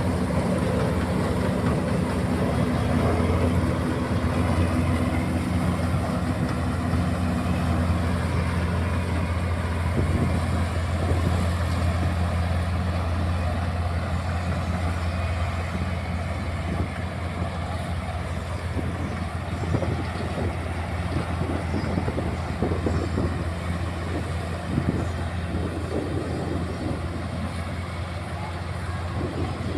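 Combine harvester running steadily while harvesting wheat: a loud, even engine hum with a low steady drone and the rushing noise of the machine at work, easing slightly in level toward the end.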